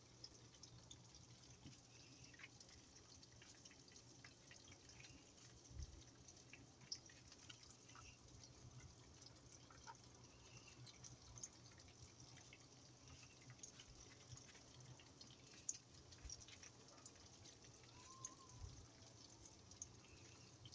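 Near silence with faint, scattered wet clicks and taps from hands pressing pieces of cow brain into flour on a wooden cutting board.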